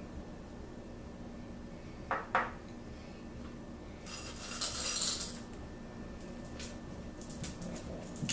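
Small hard-shelled candies rattling in a glass bowl as a hand scoops a handful, about a second of rattle near the middle, with two sharp clinks before it and a few light ticks afterwards as the candies are scattered onto the cake.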